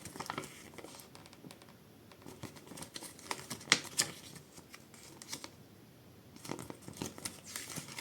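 Product packaging being handled and unwrapped: intermittent crinkling and rustling with scattered sharp clicks, the sharpest a pair about four seconds in.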